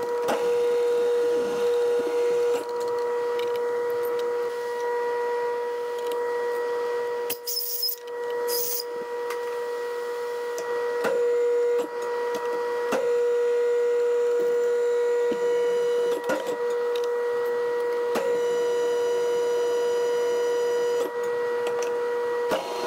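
Metal lathe running with a steady pitched hum, broken off briefly about a third of the way in. Scattered sharp clicks and knocks of metal tooling come over the hum as a tap in the tailstock drill chuck is set up to thread the end of the pin.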